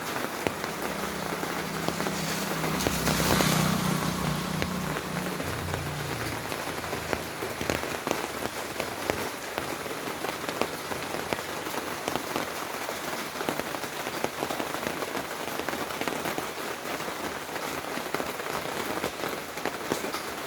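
Heavy monsoon rain falling steadily, with many separate drop hits ticking through the hiss. A louder low rumble swells and fades away within the first several seconds.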